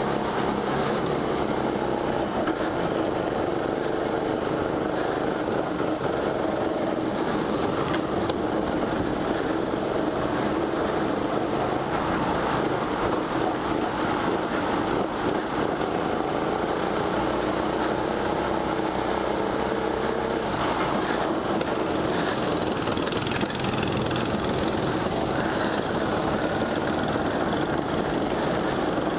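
Go-kart driving at speed, its motor running continuously, the pitch shifting a little through the corners.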